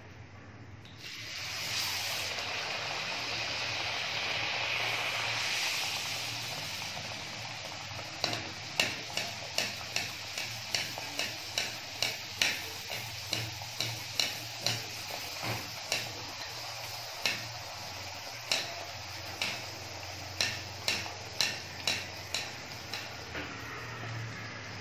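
A ragi vada dropped into hot oil in a kadai, sizzling loudly. From about eight seconds in, a ladle clinks against the pan roughly twice a second as hot oil is spooned over the vada to make it puff up, with the frying sizzle going on underneath.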